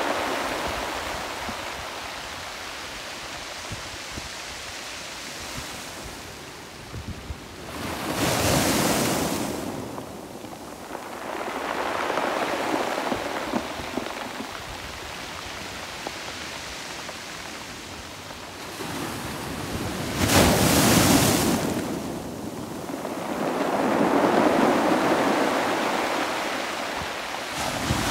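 Small sea waves breaking on a pebble beach and washing up and back over the rounded stones, with the slow suck and clatter of the backwash. The sound swells and fades with each wave, and two louder breaks come about a third of the way in and again after two-thirds.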